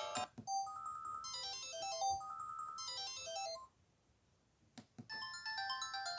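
Samsung SGH-Z140 mobile phone playing one of its built-in polyphonic ringtones, a short synthesized melody that stops about three and a half seconds in. After a brief pause and a few clicks, a different ringtone melody starts.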